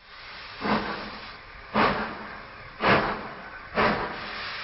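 Steam train sound effect: four slow chuffs about a second apart, with a steady hiss between them.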